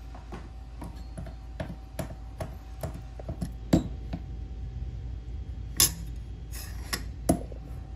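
Steel socket of a hand-operated torsion tester clicking and knocking against screw heads and the metal fixture plate as it is moved from screw to screw. The taps come irregularly, about every half second, with three sharper knocks in the second half, over a steady low hum.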